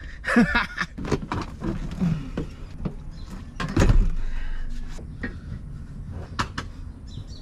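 Bride bucket seat knocking and clicking as it is set down and shifted onto its mounts on the car floor, with one heavy thump about four seconds in.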